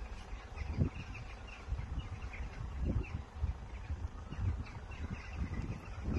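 Small birds chirping over and over, over the uneven low rumble of wind buffeting the microphone.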